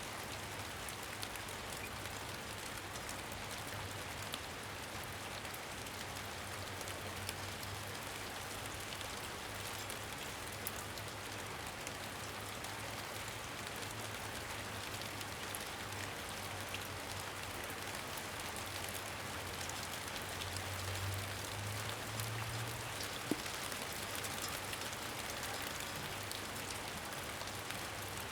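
Steady rain falling on a surface, an even hiss with scattered sharper drop ticks and a low rumble underneath.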